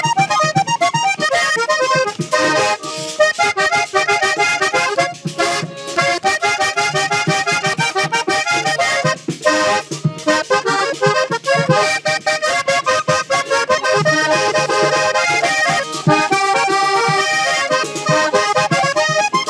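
Vallenato music played live: a diatonic button accordion runs through quick melodic lines over the beat of a caja vallenata hand drum and the scrape of a guacharaca, with no singing.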